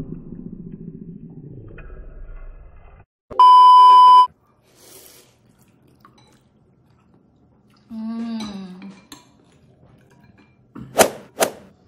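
A censor bleep: one loud, steady electronic beep lasting under a second, about three seconds in, after a low rumbling noise. Near the end come two sharp clinks of a spoon against a ceramic bowl.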